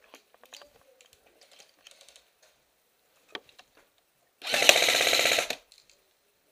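Airsoft electric M4A1 rifle firing one full-auto burst of just over a second, a rapid mechanical rattle of the gearbox cycling shot after shot, about four seconds in. Before it, light clicks and rustling of gear.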